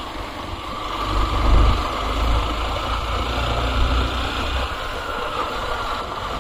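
Motorcycle engine running while riding, with wind and road noise on the microphone; the low rumble swells briefly between one and two seconds in.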